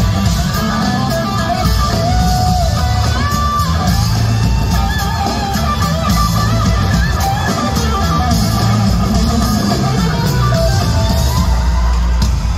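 Loud live concert music played through a venue sound system, with heavy bass and a steady drum beat.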